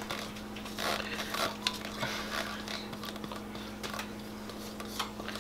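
Silicone spatula scraping a thick, warm peanut-butter and syrup mixture out of a bowl, a series of short soft scrapes and slides, over a steady low hum.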